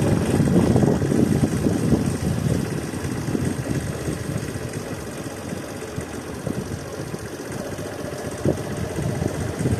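Motorcycle engine running during a ride, with a steady rumble that eases a little after the first couple of seconds, and a single short tick near the end.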